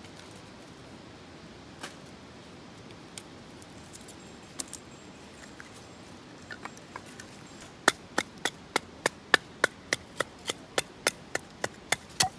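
Batoning firewood: a length of wood strikes the spine of a knife blade set into a log, splitting it. A few scattered taps, then from about eight seconds in a steady run of sharp wooden knocks, about three a second.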